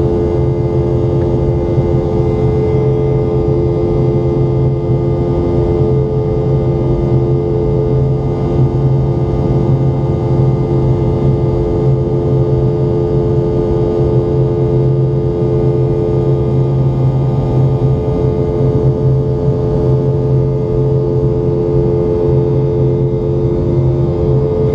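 Boeing 717's rear-mounted Rolls-Royce BR715 jet engines running at steady power, heard inside the passenger cabin as a constant hum with several steady tones over rushing air noise.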